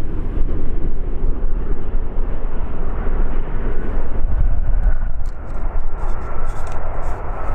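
Airbus A320-214's CFM56 jet engines running loud during landing, a steady deep roar; about halfway through a whine joins in and slowly falls in pitch.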